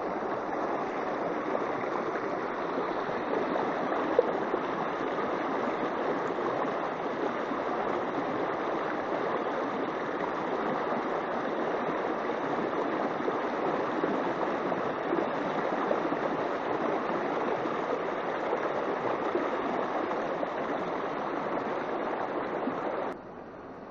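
Shallow, fast mountain river rushing over rocks in a riffle: a steady rush of water. Near the end it drops suddenly to a quieter rush.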